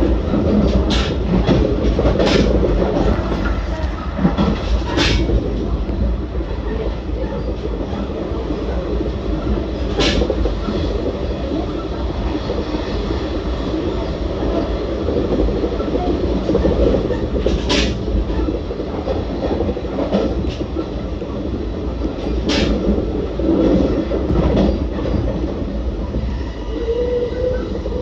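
JR Central 383 series limited express electric train running along the line: a steady rumble of wheels on rail, with a few sharp clicks at irregular intervals from rail joints and track.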